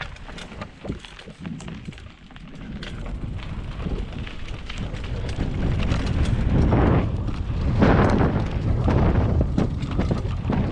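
Mountain bike descending a dirt trail: wind rushing over the microphone and tyres rolling on dirt, with quick rattling clicks from the bike. The rush grows louder from about two seconds in as speed builds.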